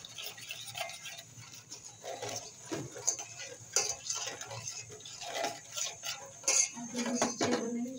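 A steel spoon stirring milk tea in a steel pot, ticking and clinking lightly and irregularly against the pot's sides as the sugar and tea leaves are mixed in.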